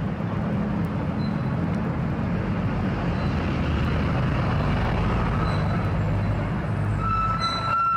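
Scania P380 heavy-haul truck's diesel engine running as it drives slowly past, with road noise. About a second before the end a steady high tone starts and holds.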